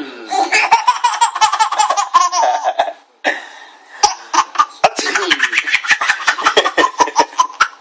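Baby laughing hard in quick, high-pitched runs of giggles, with a short break about three seconds in.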